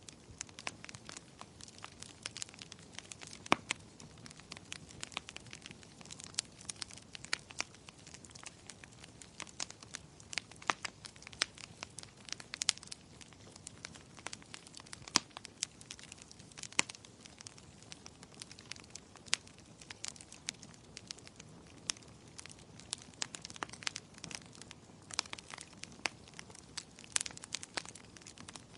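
Wood fire crackling, with many irregular sharp pops and snaps over a soft steady hiss.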